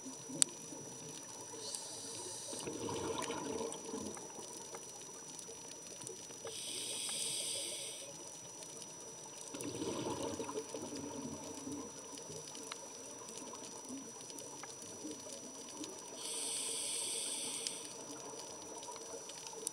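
Scuba diver breathing through a regulator, heard underwater: a hissing inhale comes about every nine seconds, three times. Each of the first two is followed a few seconds later by a rumbling gurgle of exhaled bubbles.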